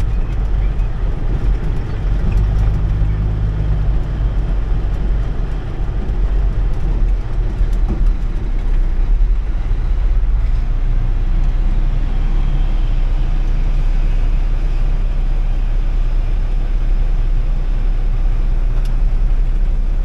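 Semi truck's diesel engine running from inside the cab as the truck rolls slowly, a steady low drone whose pitch shifts a little with the throttle.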